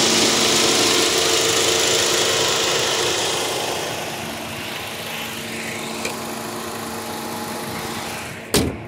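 Chevy Cruze's Ecotec four-cylinder engine idling steadily over the open engine bay, running smoothly, a sign of a healthy engine. It grows quieter about four seconds in. Near the end the hood is shut with one loud thump.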